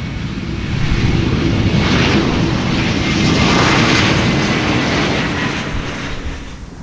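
Jet airliner engines heard as a rushing noise with a faint high whine. It swells about a second in and fades near the end.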